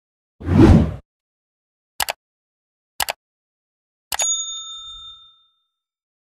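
Subscribe-button animation sound effects: a whoosh, two quick mouse clicks about a second apart, then a click and a bell ding that rings out for about a second.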